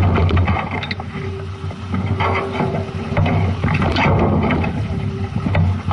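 Sounds aboard a sailboat under way: water washes along the hull in uneven surges over a steady low rumble, with scattered knocks and clicks.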